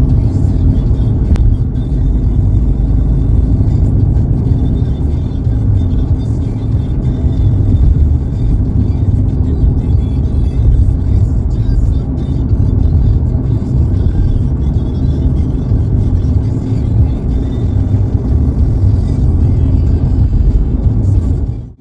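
Car driving along a road: a steady low rumble of engine and tyre noise, dropping away suddenly for a moment at the very end.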